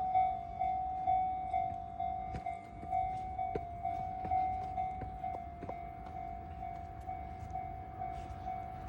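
Japanese railway level-crossing warning bell ringing in a steady, rapid ding-ding, about two strikes a second, over the low rumble of a Keihin-Tohoku Line electric train passing.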